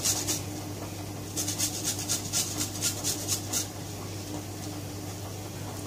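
Carrot being grated on a hand grater: a run of quick rasping strokes, about six a second, through the middle, then they stop.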